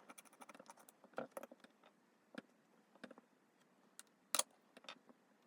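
Faint, scattered small clicks and taps of precision repair tools and tiny screws against a Samsung Galaxy Z Flip 4's internal parts, the loudest a little past four seconds in.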